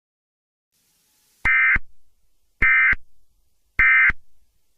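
Emergency Alert System SAME digital data tones: three short, identical buzzing bursts about a second apart. This is the end-of-message signal that closes an EAS alert.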